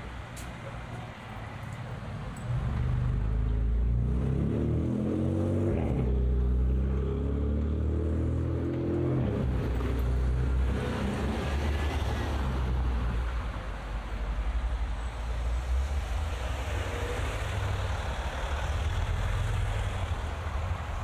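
A car engine passing close, starting loud about two and a half seconds in with its pitch shifting over several seconds, then steady road traffic noise.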